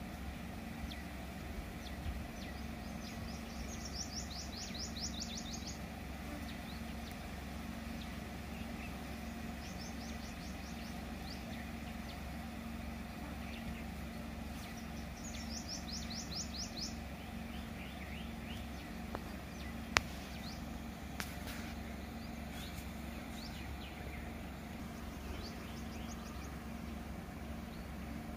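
Steady low hum of an idling car engine, with a bird singing a quick run of high repeated notes three times, and one sharp click about twenty seconds in.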